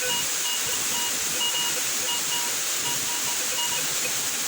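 Steady hiss of the waterfall and stream, with a metal detector's target tone beeping in short, uneven pulses for the first three and a half seconds or so, as the coil sweeps over a buried metal target.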